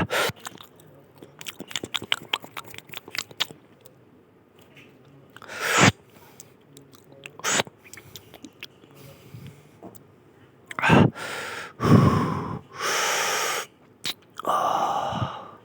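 A person chewing food with a run of quick wet clicks and smacks, then several louder, longer mouth sounds in the second half.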